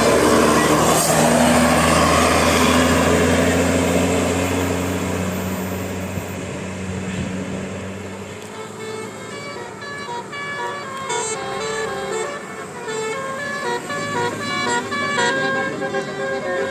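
A bus passes close with its engine running loud, fading after about five seconds. From about halfway through, a telolet horn (a multi-tone musical bus horn) plays a quick run of short notes stepping up and down in pitch.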